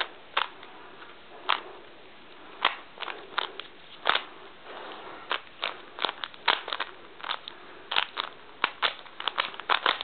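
Rubik's Cube layers being twisted by hand: irregular plastic clicks and clacks, a few spaced out at first and coming faster and closer together over the last few seconds.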